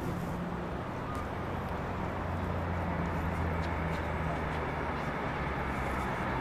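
A steady low engine-like hum over an even background rush, fading out near the end.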